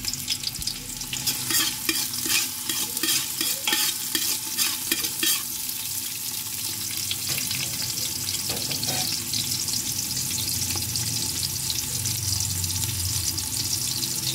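Chopped red onions sizzling in hot oil in a metal pot, frying on their way to golden. For the first few seconds a run of quick scrapes and clicks of a utensil against the pot as they are stirred, then a steady sizzle.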